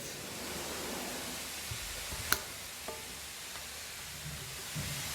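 Steady workshop hiss with one sharp metallic click about two seconds in and a few faint knocks, as metal engine parts are handled.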